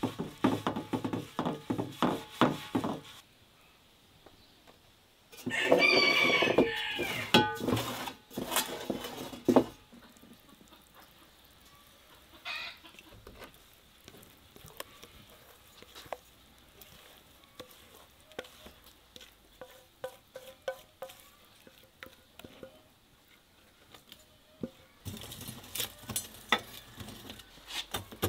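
A rooster crows once, loud, starting about five seconds in and trailing off near the tenth second. Before it comes a quick run of clicks and taps for about three seconds; afterwards there are only scattered faint clicks, growing into a denser patch of crackling ticks near the end.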